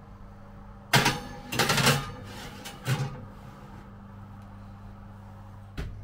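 Glass baking dish set down and slid onto a metal oven rack, clattering three times in the first three seconds over a steady low hum, with a sharp click near the end as the oven door starts to shut.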